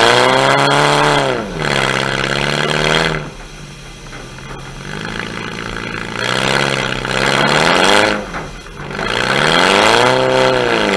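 Demolition derby car's engine, heard close up from its hood, revving hard and easing off as the car drives around the arena. The revs climb and drop at the start, settle lower for a few seconds, then rise and fall twice more near the end.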